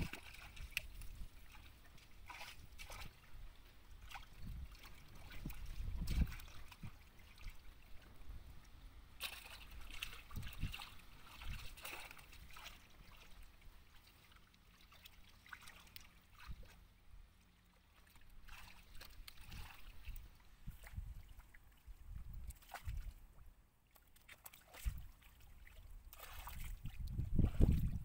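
Shallow muddy water sloshing and trickling as hands grope through it, with scattered small splashes and irregular low rumbling gusts, the strongest near the end.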